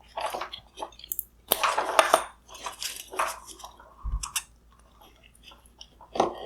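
Plastic wire harness connectors being unclipped and pulled off a headlight's control units: a run of irregular plastic clicks, crackles and rustling handling noise, with a dull knock about four seconds in.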